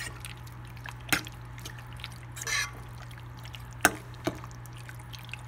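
A spoon stirring marinated chicken cubes in a white bowl: a wet squelch of the coated meat about halfway through, and three sharp clicks of the spoon against the bowl.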